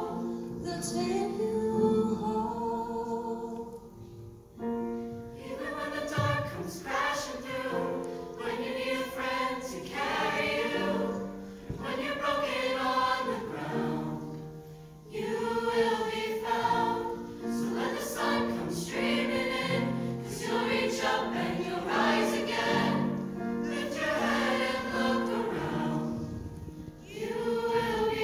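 A mixed school choir of girls and boys singing a ballad together in harmony, the voices easing off briefly between phrases.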